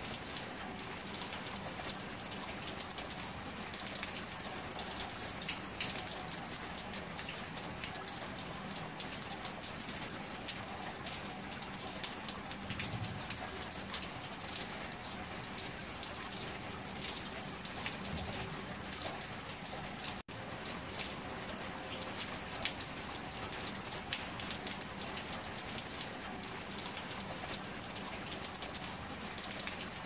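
Heavy rain pouring onto stone paving and puddled ground, a dense steady patter of splashing drops. The sound drops out for an instant about twenty seconds in.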